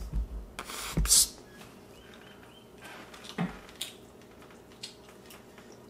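Quiet handling and eating sounds while a piece of roast wild turkey leg is held up and tasted: a few soft thumps and a short rustle about a second in, then scattered light clicks and a knock.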